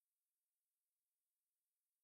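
Near silence: an essentially empty audio track with only a faint hiss.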